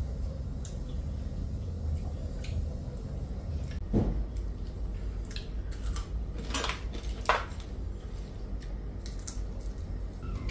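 Chopsticks and bowls clinking and tapping now and then as people eat, a few sharp clinks, the clearest about four seconds in and twice around seven seconds, over a low steady hum.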